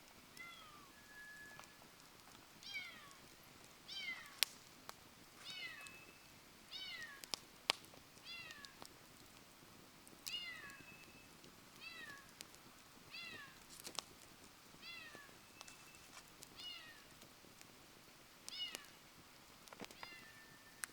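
An animal giving short calls over and over, about one a second, each falling in pitch, over the occasional sharp pop and crackle of a wood campfire.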